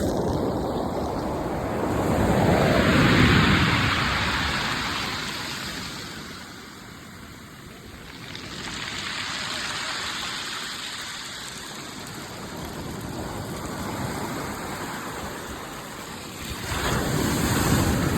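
Sea waves breaking and washing back, each surge building and fading over several seconds, the biggest about three seconds in and another near the end.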